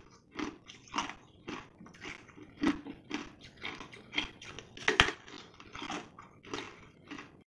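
Teeth biting and crunching into a tray-frozen slab of coloured ice, close to the mic: a run of sharp crunches about two a second, the loudest about five seconds in.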